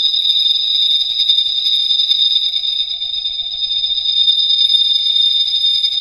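Make Noise Eurorack modular synthesizer playing a cicada-imitating patch: a steady, shrill, high buzzing drone, with a faint steady lower tone beneath it.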